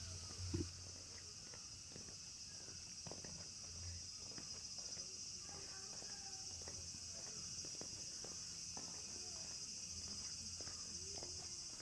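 A steady, high-pitched chorus of chirring insects, with faint voices and scattered soft footsteps beneath it.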